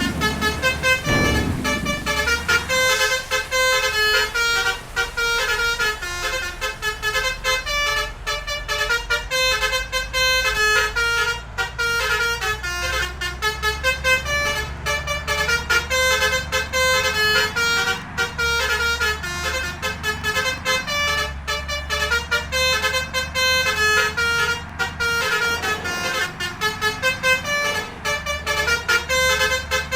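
Multi-tone 'basuri' telolet horn playing a quick melody of short stepped notes without a break, over a low engine rumble.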